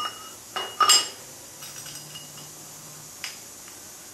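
Metal wind-turbine hub plate clinking and clanking against the alternator's shaft as it is fitted back on. There are three sharp clanks in the first second, the loudest with a short ringing note, then a few lighter clicks.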